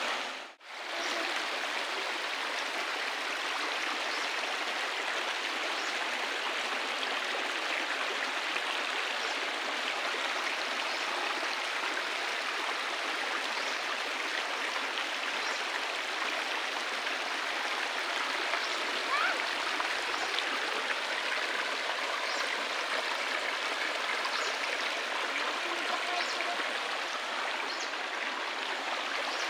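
Shallow rocky stream running over stones and small riffles: a steady rush of water that drops out for a moment about half a second in.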